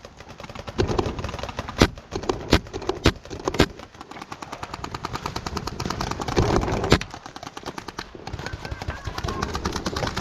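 Paintball markers firing across the field in rapid strings of shots, with several louder single shots close by.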